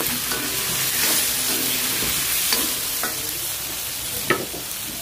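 Tomato-sauce fish stew sizzling steadily in an aluminium wok as pieces of fish are laid into it, with a couple of sharp knocks of the ladle against the pan about halfway and near the end.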